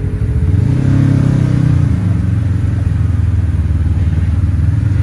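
Off-road vehicle engine revving up just under a second in, then running hard at steady high revs.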